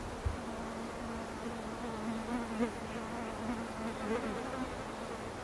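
A flying insect buzzing close by: a steady hum that wavers in pitch and stops about four and a half seconds in. A brief low thump sounds near the start.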